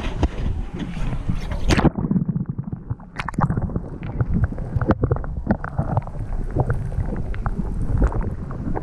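Sea water splashing around a camera as it is dipped under the surface about two seconds in. After that the sound turns muffled, as heard underwater: a low rumble of moving water with bubbling and scattered knocks and clicks.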